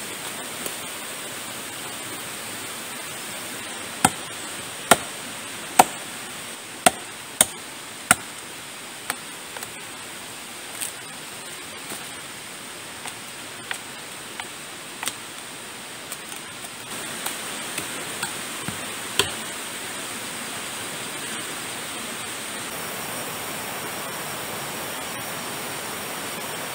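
Machete blows chopping into a green bamboo culm: a run of six hard, sharp strikes about a second apart starting a few seconds in, then lighter, more scattered chops that stop well before the end. A steady hiss runs underneath.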